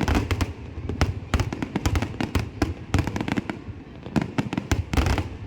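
Fireworks display: a dense barrage of bangs and crackles, several a second, over a constant low rumble.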